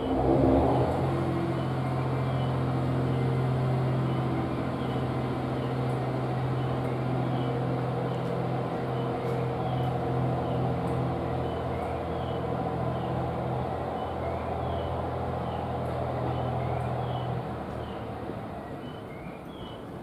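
JR East GV-E400 diesel-electric railcar pulling out, its diesel engine throttling up suddenly at the start into a steady drone that holds until it drops away about three seconds before the end.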